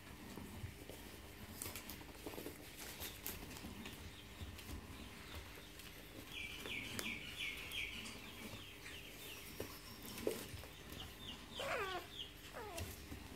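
Five-week-old Staffordshire bull terrier puppies scrabbling on bedding and a wooden box edge, with light clicks and rustles throughout. A quick run of high squeaks comes about halfway through, and two falling whines near the end.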